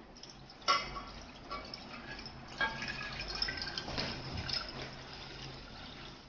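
Liquid splashing and dripping in a cooking pot, with a sharp knock of a utensil on the pot about a second in and another after about two and a half seconds.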